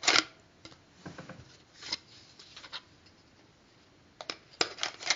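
Scattered handling noises: a sharp click at the start, then a handful of short clicks and brief rustles spread over a few seconds, with a cluster of clicks near the end.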